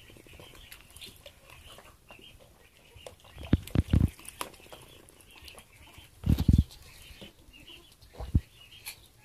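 A goat drinking and mouthing food from a plastic bucket of water with floating squash slices and bread: wet slurping and small mouth clicks, with louder splashing bursts about three and a half, six and a half and eight seconds in.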